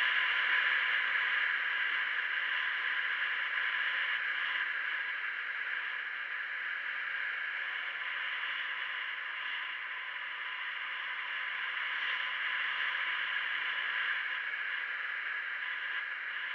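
Steady road and wind noise of a vehicle travelling along a winding road, heard through a dashcam's small microphone, with a faint steady high whine underneath; the noise swells slightly about twelve seconds in and eases near the end.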